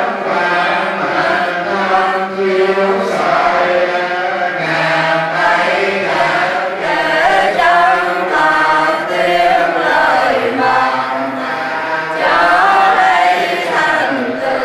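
Many voices chanting Buddhist prayers together in Vietnamese, a continuous sung recitation.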